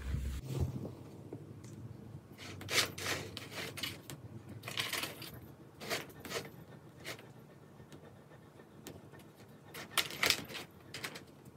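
Dry cat kibble rattling and clicking inside a round cardboard food-puzzle toy as a cat paws and noses at the holes, in scattered short bursts with quiet gaps between.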